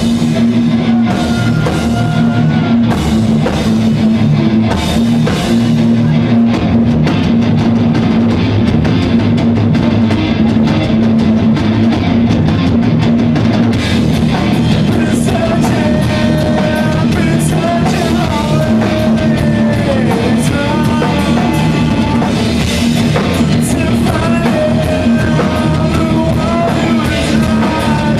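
Live rock band playing: electric guitars, bass and a drum kit driving along under a held low note, with a man's voice singing in from about halfway through.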